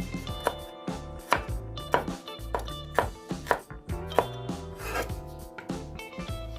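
Kitchen knife chopping on a cutting board, several sharp, irregular strokes, over background music.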